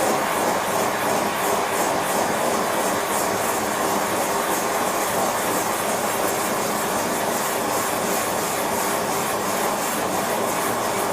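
Gas torch flame burning steadily with an even rushing noise as it melts silver shot for an ingot pour.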